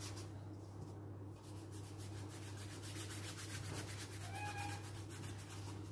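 Paint being scrubbed across paper in quick, repeated rubbing strokes, over a low steady hum. A short squeak comes about four and a half seconds in.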